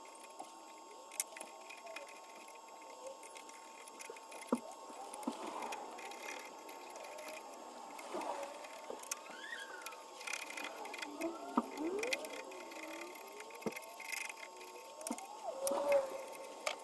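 Small metal hand tool scraping and prising bark off the rim of a cherry bowl, giving squeaky rising and falling tones with scratchy clicks now and then, over a faint steady whine.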